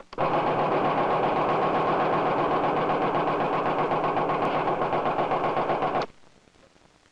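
Foundry jolt molding machine jolting: its table is repeatedly lifted and dropped, metal striking metal in a loud, rapid, steady hammering that cuts off abruptly near the end.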